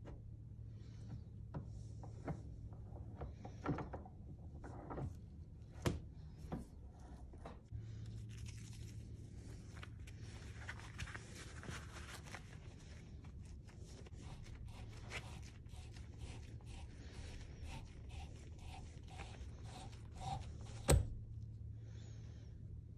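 Workbench handling noise: scattered clicks and knocks, then a long stretch of rustling and crackling as work gloves are pulled on, and one sharp knock about 21 seconds in, over a steady low hum.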